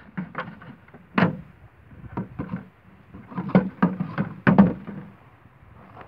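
Irregular hollow knocks and rattles from a large plastic bottle bird trap with PVC pipe entrances being lifted and handled.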